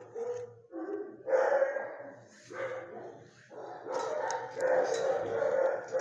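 Dog barking in a string of calls, some short and some drawn out.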